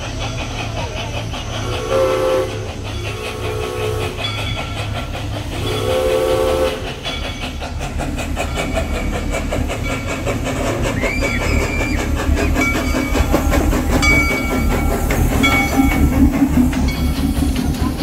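Crown Metal Products narrow-gauge 4-4-0 steam locomotive blowing its whistle three times in the first seven seconds, the last blast the longest. It then rolls up with a steady low rumble and wheels clacking over the rail joints, growing louder as it comes alongside.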